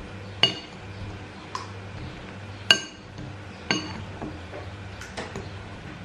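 A metal utensil clinking against a clear glass bowl as whole tomatoes are stirred and crushed in it: sharp, ringing clinks about once a second, three of them much louder than the rest.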